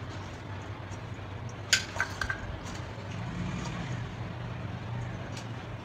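Hand mixing cooked rice and chopped fenugreek leaves in a stainless steel bowl: soft handling sounds with a few light clicks against the bowl, the sharpest about a second and a half in, over a steady low hum.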